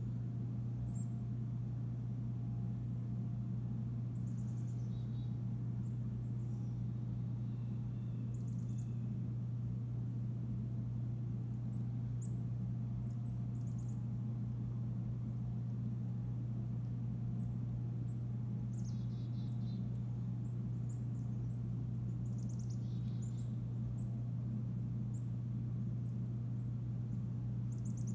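Small birds chirping in short, high phrases every few seconds over a steady low hum.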